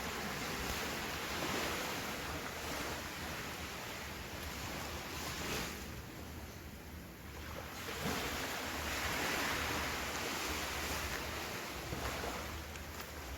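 Ocean surf washing onto a beach, a steady rush that swells, eases off for a moment about halfway through, then swells again.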